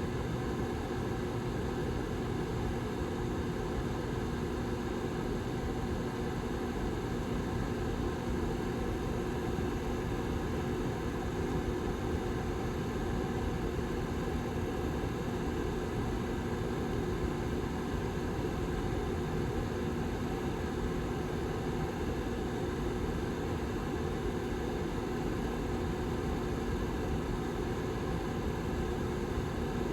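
Rear fan of a Lasko 755320 tower heater running steadily: an even rush of air with a low, constant hum underneath.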